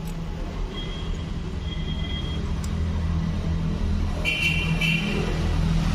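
Road traffic rumbling and slowly swelling as a vehicle passes, with two short high-pitched toots about four and a half seconds in.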